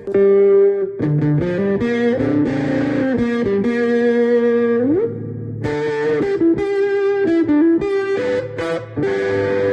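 Electric guitar played through an effects pedalboard: a line of changing single notes and held notes, with one note sliding up in pitch about five seconds in.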